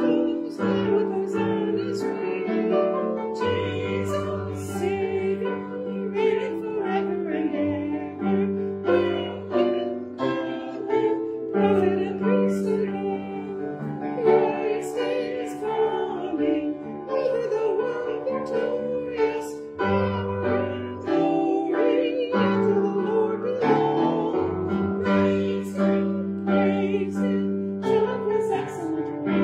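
Hymn sung with piano accompaniment, with sustained sung notes over steady piano chords.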